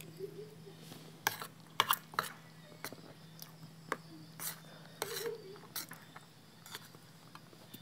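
Eating crispy pork cracklings with chilli paste: irregular crisp crunches of chewing mixed with sharp clicks of a spoon and fork against a bowl, over a steady low hum.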